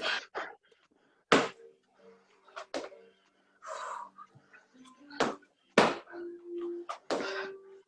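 People doing burpees on a hard floor: irregular sharp thuds and thumps of hands and feet landing as they drop down and jump back up, about eight in all.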